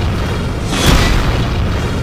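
Music with a heavy booming sound effect, one big hit a little under a second in.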